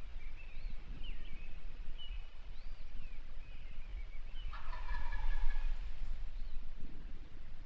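A wild turkey tom gobbling once, a rattling call about four and a half seconds in.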